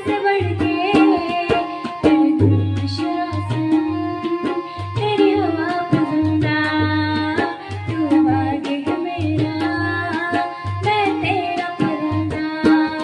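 Indian film-song music: a tabla and drum beat under a melody line that bends and slides in pitch.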